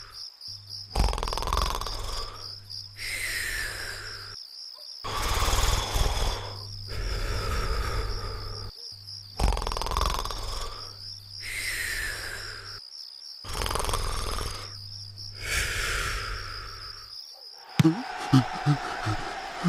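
Cartoon snoring repeating about every four seconds: a long rasping snore in, then a whistling breath out that falls in pitch. It sits over a steady, slightly pulsing high tone. Near the end comes a quick run of sharp knocks.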